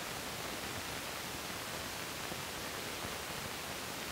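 Steady hiss of an old 16 mm film soundtrack, with no other sound standing out.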